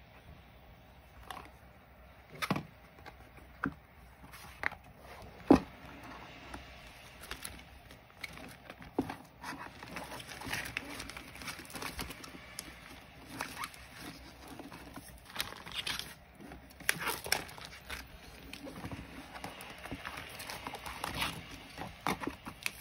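Hands handling a frosted plastic ring binder and its clear plastic sleeve pages: a few sharp taps and clicks on the cover in the first seconds, the loudest about five seconds in, then plastic sheets rustling and crinkling as the pages are turned.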